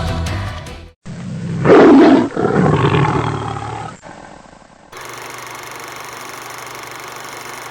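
Music fading out, then after a sudden cut a loud roar sound effect, like a big cat's, that swells quickly and trails off over a couple of seconds. From about five seconds a steady low hum with hiss.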